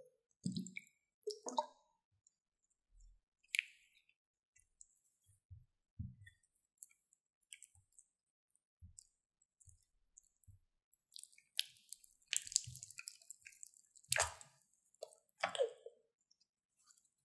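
Glue-and-glitter slime mixture being stirred and folded with a silicone spatula in a glass bowl, as it thickens into stretchy slime: scattered wet squishes and sticky clicks, with a louder run of squelching in the second half.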